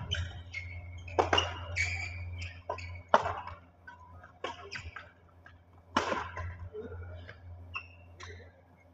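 Badminton shuttlecock hit back and forth with rackets in a rally: sharp hits roughly every one and a half seconds, echoing in a large hall. Short squeaks of shoes on the court come between the hits, over a steady low hum.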